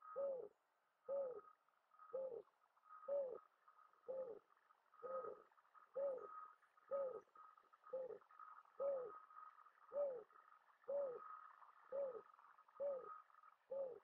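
Mourning dove cooing: an even series of short, low coos, each rising and falling slightly in pitch, repeating about once a second.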